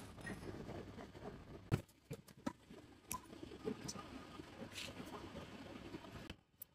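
Scattered light clicks and knocks of hand work on mechanical parts over a low rustling, with one sharper knock about two seconds in.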